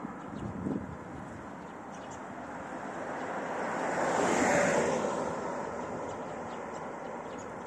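Street traffic with one vehicle passing by, its noise swelling to a peak about four and a half seconds in and then fading back.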